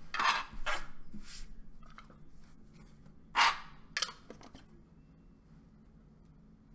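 Handling noise from a stack of trading cards and its clear plastic wrapping: a few short rustles in the first second and a half, a louder swish about three and a half seconds in, and a click just after, then quiet room tone.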